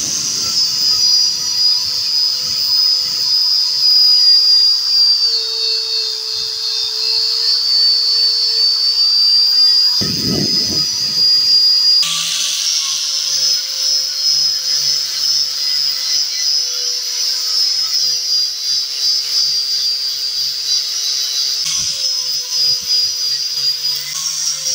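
Angle grinder running with a steady high whine, its abrasive disc grinding rust off a clamped steel knife blade. There is a short burst of low noise about ten seconds in.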